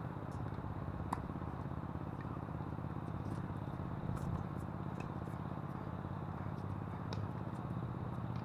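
Strong wind buffeting an action camera's microphone, giving a steady low rumble. A few faint sharp knocks of rackets striking a tennis ball come through it, the clearest about a second in.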